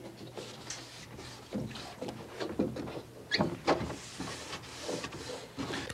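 Wet sponge and rag wiping over raw pine, wetting the wood down before a first coat of milk paint: irregular short rubbing strokes, with a soft hiss about four to five seconds in.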